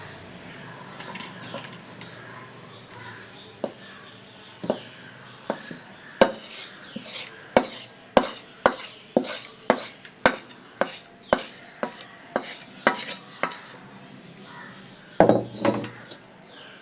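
A spoon clinking and scraping against a pot while thick curry is ladled out into another dish: a string of sharp taps, about one or two a second, then a louder clatter near the end.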